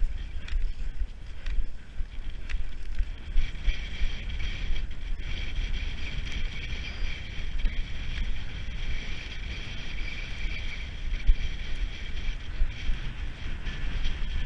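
Wind rumbling and buffeting on the microphone of a camera worn by a skijoring skier. Beneath it, cross-country skis hiss steadily as they glide over packed snow, with scattered light clicks.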